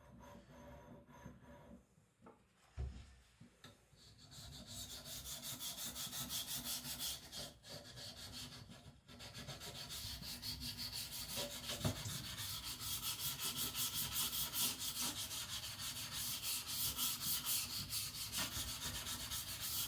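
Carbon-steel knife blade being worked on a coarse 200-grit whetstone. After a few quiet seconds with a knock, steady rapid back-and-forth rasping strokes start about four seconds in and carry on, with brief breaks.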